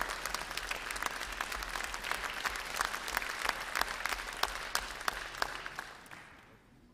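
Audience applause: many people clapping, dense at first, then thinning and fading away about six seconds in.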